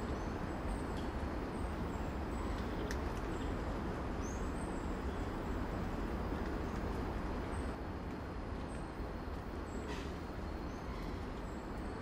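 Rainforest ambience: a steady low rumble with faint, short, high chirps repeating every second or so, and a couple of brief clicks.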